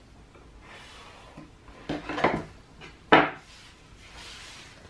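Marker rubbing across paper, with a few knocks and clatters as a metal ruler is handled and set down on the table, the sharpest about three seconds in.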